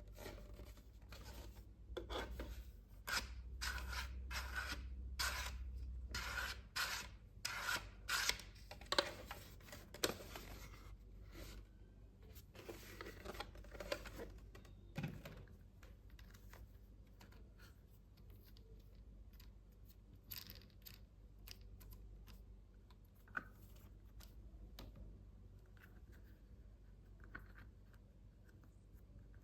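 Toy packaging being opened and handled by hand: a run of sharp crackles and snaps over the first ten seconds or so, then lighter handling with a few single clicks.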